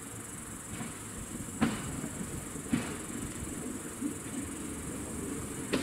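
Class 810 diesel railbus approaching slowly, with a low running rumble and a few sharp clicks of its wheels over rail joints, about a second apart and then three seconds apart. A steady high hiss runs under it.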